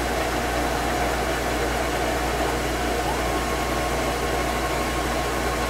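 Steady running of a vacuum cleaner together with a CNC wood lathe spinning a spindle blank, an even noise with a faint hum. The tool is still making passes in the air, so there is no cutting sound yet.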